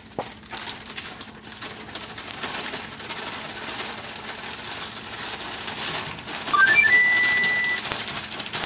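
Tortilla frying in oil in a pan, sizzling and crackling, with a short run of rising high notes leading into one held whistle-like tone near the end.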